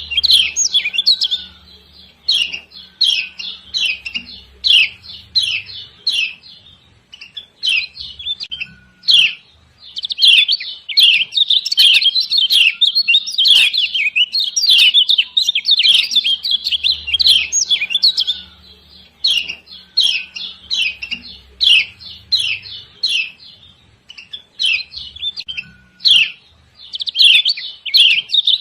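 Female kecial kuning (Lombok yellow white-eye) giving rapid, excited 'ciak ciak' chirps in long runs broken by short pauses.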